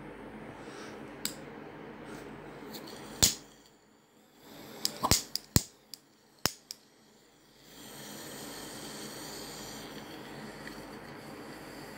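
Sharp clicks and knocks of close-up handling over a steady hiss: one loud knock about three seconds in, then a quick run of six or so clicks between about five and seven seconds in.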